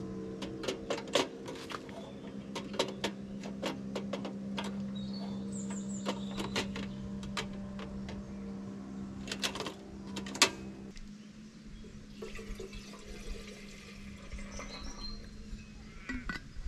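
Cooking utensils and dishes clinking and knocking, many sharp taps in the first ten seconds, over a steady low hum that stops about ten seconds in.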